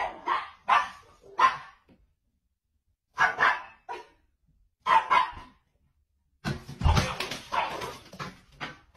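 A small dog barking in short, sharp barks that come in little groups of two or three with pauses between, then a busier run of barking with a thud about seven seconds in.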